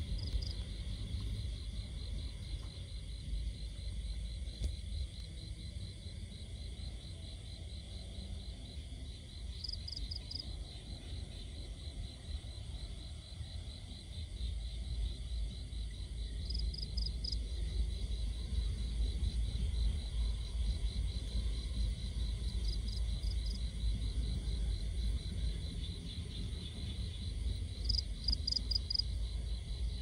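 Night insects trilling outdoors: a steady, fast pulsing trill, with short bursts of higher chirps every several seconds, over a low rumble.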